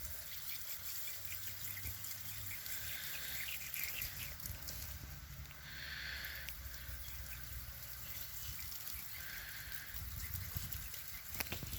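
Water running from a garden hose, trickling and splashing, with a hiss that swells every few seconds and is strongest about halfway through.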